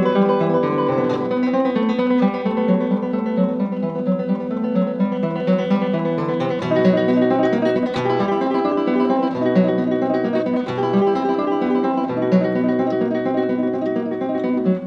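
Background music: an acoustic guitar playing plucked notes in quick succession.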